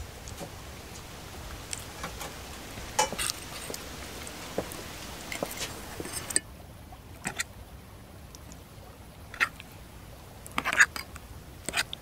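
Metal utensils tapping and scraping on an enamel pan and plate, with soft wet sounds of thick sauce over fried fish: scattered short clicks, a tight cluster of them near the end. A steady background hiss drops out about halfway through.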